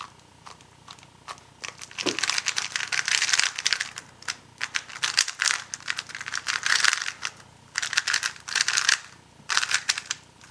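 A new Weilong GTS V2 M magnetic 3x3 speedcube being turned for the first time, heavily lubed and not yet broken in: rapid runs of clicking turns in several bursts with short pauses between, after a couple of seconds of scattered single clicks.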